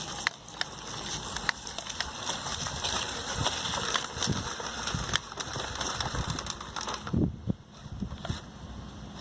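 A Lego Technic RC truck driving over rough ground: its hobby motor and plastic gearing running with many clicks and crunches from the tyres and bouncing chassis.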